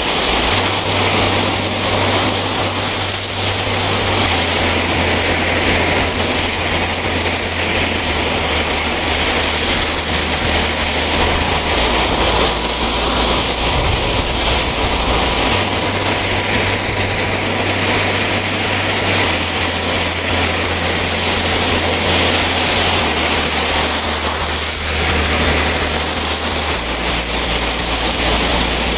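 Steady, loud aircraft engine noise with a constant high-pitched whine, holding an even level throughout.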